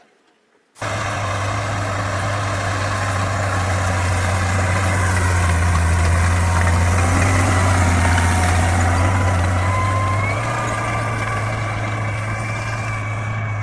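Crawler tractor's engine running steadily under load as it pulls a plough, with a deep, steady hum and a thin high whine above it. The sound starts abruptly under a second in, and the whine steps up slightly in pitch about ten seconds in.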